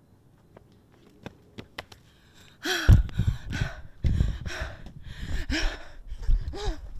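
A person panting and gasping in fright: loud ragged breaths about two a second, some with a short whimper in them, starting about three seconds in after a few faint clicks.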